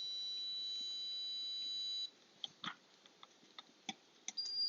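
A homemade alarm panel's electronic buzzer holds a steady high tone, then cuts off about two seconds in. A few sharp clicks follow as the DIP switches are flipped, and near the end the buzzer starts again with a steady, continuous tone at a slightly higher pitch.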